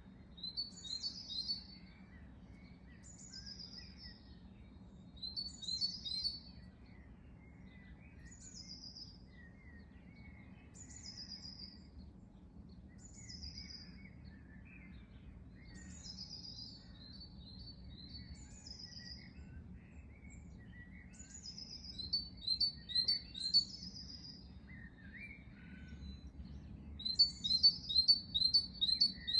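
Songbirds singing: one bird repeats a short, high, descending phrase every second or two, with a quick run of sharp chirps near the end, while fainter birds twitter underneath. A steady low rumble of background noise runs beneath the song.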